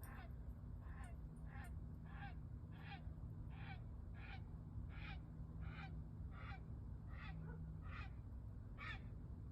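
A bird calling over and over, short calls that each drop in pitch, about three every two seconds, over a faint steady low hum.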